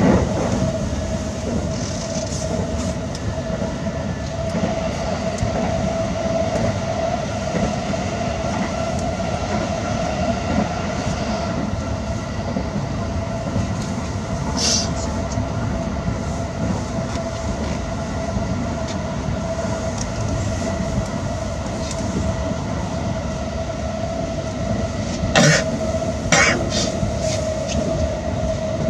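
Running noise heard inside the passenger cabin of a JR East E353 series electric train at speed: a steady rumble with a constant hum. A brief sharp click comes about halfway through, and two more a second apart near the end.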